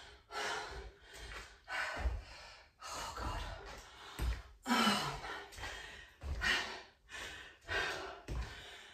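A woman's heavy breathing during lateral lunges: sharp, breathy exhales about once a second, some with a soft low thump beneath them.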